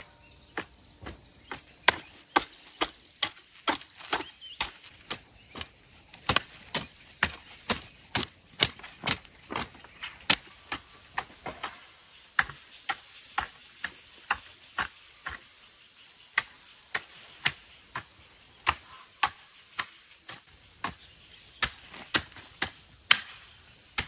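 Rhythmic chopping: sharp strokes, about two a second.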